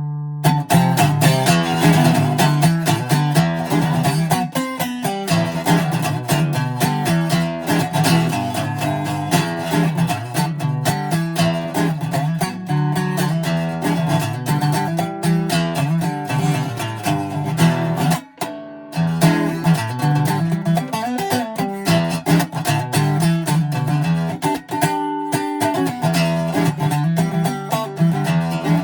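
Greco D-70 steel-string acoustic guitar being played, notes and chords following each other quickly, with a brief break about eighteen seconds in.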